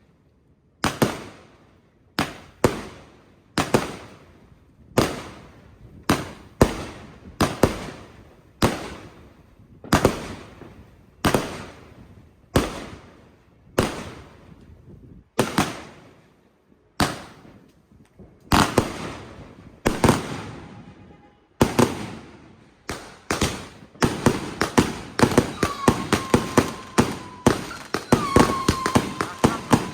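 Fireworks going off: sharp bangs about once a second, each trailing off in echo, that quicken about three-quarters of the way through into a dense, rapid volley of shots.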